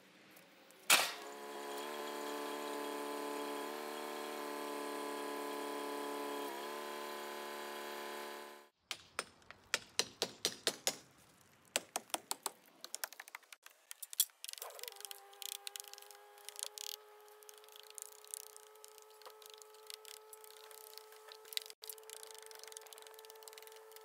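Tractor engine running steadily, with a sharp knock about a second in; it stops abruptly, followed by a run of quick sharp taps for about five seconds. Then a small engine starts and idles at a steady pitch with light ticking, its pitch dropping away at the very end.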